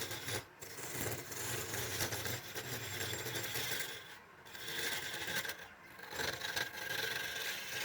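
Wood lathe turning palm wood, with a tool scraping against the spinning wood: a steady rasping hiss in long strokes, broken by short pauses about half a second, four and six seconds in, over a low motor hum.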